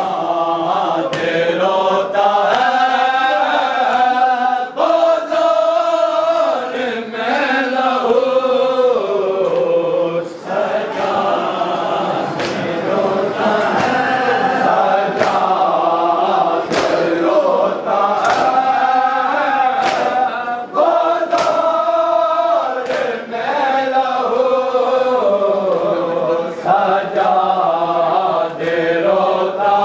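A group of voices chanting a mourning lament together, with sharp slaps of chest-beating (matam) keeping time about once every second and a half.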